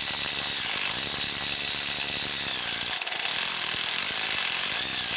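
Impact gun hammering steadily as it drives the center bolt of a three-jaw puller, drawing the crank pulley (harmonic balancer) off a GM 3.5 L LX5 V6. It falters for a moment about three seconds in, then carries on.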